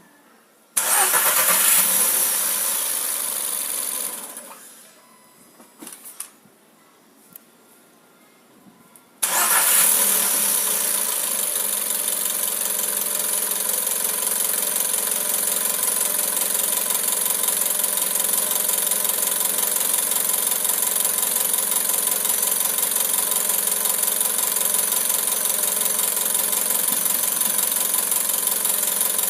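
A Volkswagen Golf 6 TSI petrol engine is started, runs a few seconds and dies away, then is started again about nine seconds in and keeps running with a fast metallic rattle, like a machine gun. This is the strange noise the owner hears on some hot starts.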